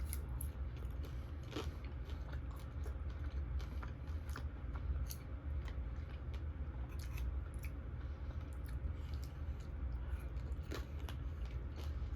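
Close-up crunching and chewing of fried wontons, irregular crisp crackles and bites, over a steady low hum.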